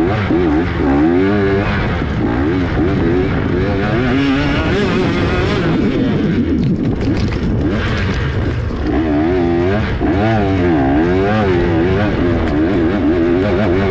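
Off-road dirt bike engine revving up and down over and over as the throttle is worked. It eases off briefly about halfway through before picking up again.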